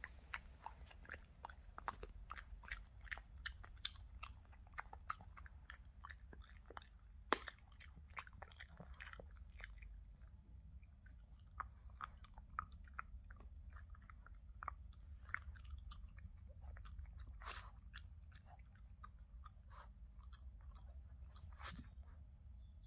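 Boston terrier chewing and crunching a hard dog treat: irregular crisp crunches and clicks, thinning out near the end.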